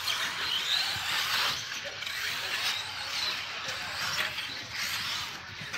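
Several electric 1/10-scale 4x4 short course RC trucks racing on dirt, their motors whirring continuously, the pitch rising and falling as the drivers work the throttle.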